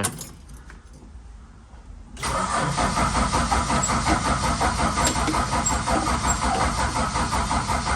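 Valiant VH Charger engine cranking on its starter motor with a steady, even pulse, starting about two seconds in. It does not catch, after the owner had said fuel should have pumped through by now.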